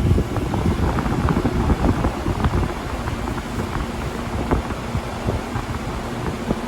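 1985 Comfortmaker Deluxe Energy Saver heat pump outdoor unit starting up in cooling mode. Its condenser fan comes on with a surge of air rush over the compressor's hum, then runs steadily with scattered light ticks and rattles.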